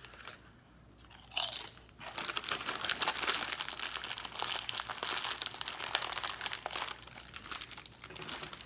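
Rotisserie-chicken flavoured potato chips being crunched and chewed close to the microphone, with a chip bag crinkling. There is a sharp crackle about a second and a half in, then about five seconds of dense, crisp crunching.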